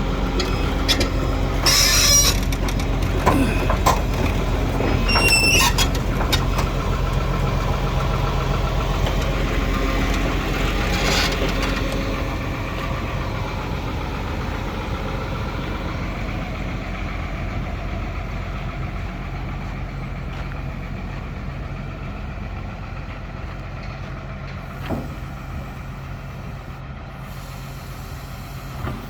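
Sumitomo SH300-5 excavator's six-cylinder diesel engine running steadily, with a few short hissing bursts and a brief squeal in the first dozen seconds; after about twelve seconds it runs a little quieter.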